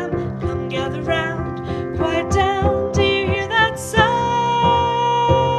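Song music: a voice singing a winding line over piano or keyboard accompaniment, then holding one long note from about four seconds in.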